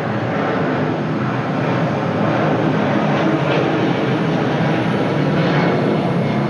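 Boeing C-32 (military 757) jet engines at high power, a loud steady roar that swells a little about two seconds in.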